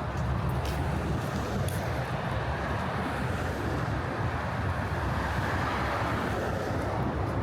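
Steady city street traffic: a continuous wash of vehicle and tyre noise that swells a little about five seconds in.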